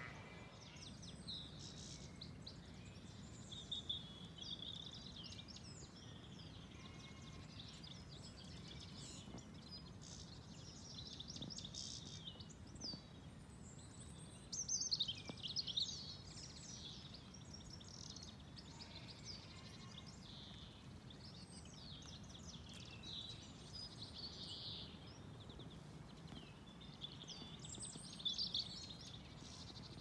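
Several wild birds singing outdoors, a mix of short chirps, trills and quick sweeping notes, with the loudest bursts of song about four seconds in, around the middle and near the end, over faint low background noise.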